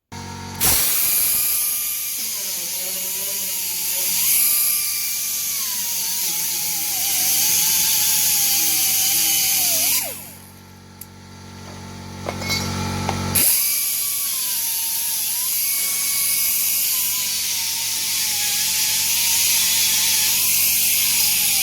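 Electric drill boring bolt holes in a steel repair plate, its motor whine wavering in pitch as it loads up. It winds down about halfway through, then starts again about three seconds later and runs on.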